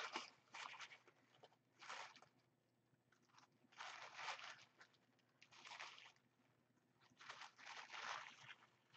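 Sheets of tissue paper crinkling and rustling as the layered petals of a paper flower are peeled up and fluffed by hand. It comes in about five soft, irregular bursts with short pauses between.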